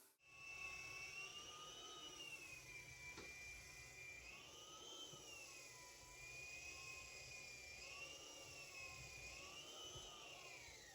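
Faint whine of a floor sanding machine's motor running, its pitch rising and falling slowly several times and gliding down near the end.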